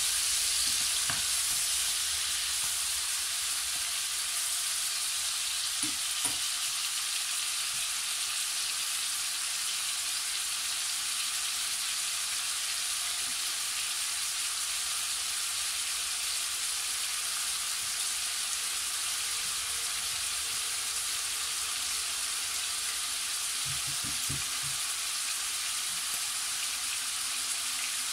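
Lamb cubes sizzling in a hot frying pan as they brown, a steady hiss, stirred with a wooden spatula in the first couple of seconds. A few soft knocks come later.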